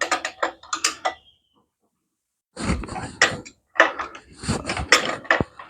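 Metal wrenches clicking and clinking against bolts and brackets in quick, irregular runs, with a pause of about a second and a half after the first second.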